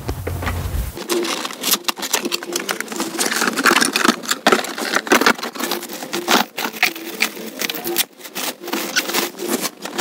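Plastic bag and cardboard packaging crinkling and rustling in irregular crackles as a mini cooler is lifted out of its box and its plastic wrap is pulled off.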